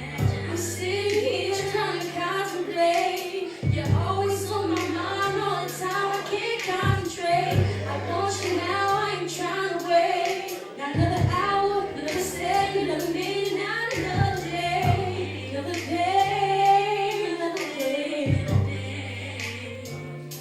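A singer performing a song live over a backing track, the voice holding long, bending notes above a steady beat and sustained bass notes that change about every two seconds.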